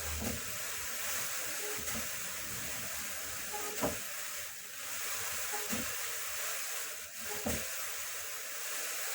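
Drum carder turning with wool being fed in, its carding cloth giving a steady hiss, with a few light knocks.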